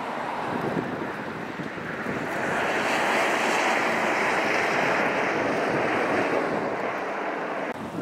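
Strong blizzard wind blowing across the microphone, a steady rushing hiss that swells about two and a half seconds in and eases off near the end.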